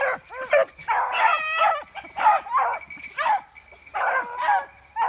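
A pack of beagles baying as they run a rabbit: a string of short, choppy yelps from several dogs, some overlapping, with one longer, drawn-out bay about a second and a half in.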